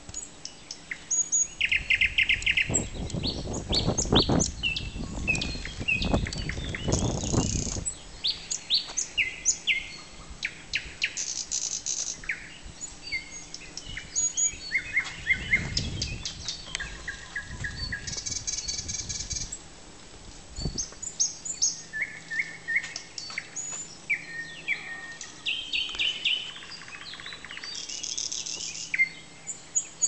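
Nightingale singing: a string of varied phrases made of whistles, clicks and fast rattling trills, with short pauses between them. A low rumble comes in twice, from about three to eight seconds in and again around fifteen to seventeen seconds in.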